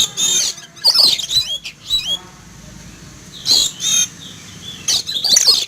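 Oriental magpie-robin (kacer) calling loudly in repeated bursts of sharp whistled notes with upswept hooks, in clusters a second or two apart.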